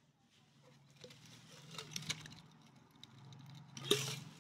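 Beer foam fizzing and crackling softly in a glass mug just after pouring, with scattered small ticks and a sharper knock near the end.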